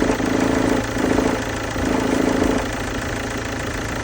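Chevrolet Captiva engine idling, with a low hum from the accessory belt drive that swells and fades, strongest for the first two and a half seconds or so. This is the noise of worn belt tensioner and alternator tensioner pulleys breaking up inside.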